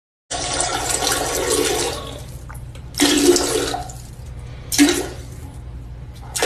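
Water splashing and running in a toilet bowl, loudest over the first two seconds, then a few shorter, sharper bursts.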